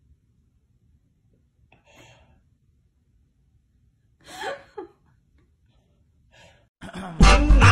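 Two short breathy vocal sounds, like gasps, the second louder with a sliding pitch, with quiet between them; music starts near the end.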